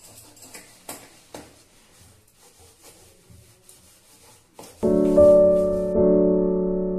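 Faint rubbing and small clicks of a plastic container being handled and wiped, then about five seconds in piano background music starts loudly with held chords, changing chord about a second later.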